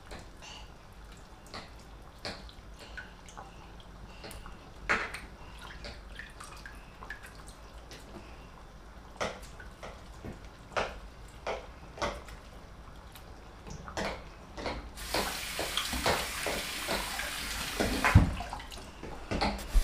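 Light clinks and knocks of hands and a metal bowl being worked in a kitchen sink while boiled cocoyam is peeled, then a tap runs cold water for about four seconds near the end, with a louder knock just before it stops.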